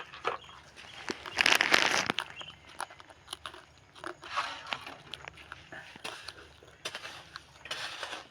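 Gritty scraping and crunching of bricks and mortar being handled, with scattered small clicks. The loudest scrape comes about a second and a half in, and two shorter ones follow later.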